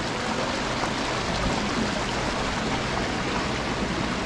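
Steady rushing noise like moving water, with a faint low hum underneath.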